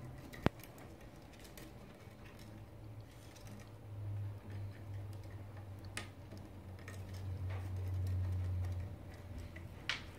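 A pineapple green-cheek conure's beak and claws clicking on a wooden branch perch: scattered small ticks, with sharper clicks about half a second in, at about six seconds and near the end. A low hum runs underneath and swells in the second half.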